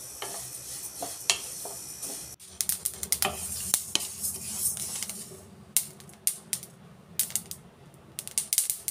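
Flax seeds crackling and popping as they dry-roast in a kadai, stirred with a wooden spatula. At first there is a steady sizzle with a few clicks; from about two and a half seconds in, many sharp pops come in quick clusters. The popping is the sign that the seeds are well roasted.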